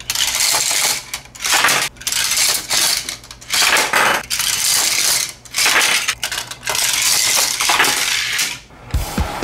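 Hard plastic parts of a transforming Cars Giant Mater toy playset clattering and clicking as its ramps and frame are folded by hand, in repeated bursts with short pauses. Music with a beat starts just before the end.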